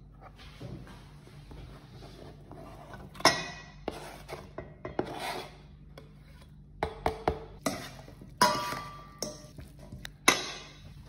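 Sliced sausage scraped off a plastic cutting board into a stainless steel mixing bowl, then a metal spoon stirring the salad and clinking against the bowl's side again and again. The loudest clanks come about three seconds in and near the end.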